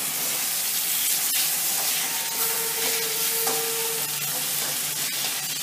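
Chopped tomatoes frying with onions and spices in hot oil in a steel kadai, sizzling steadily while a spatula stirs them, with a few sharp taps of the spatula against the pan.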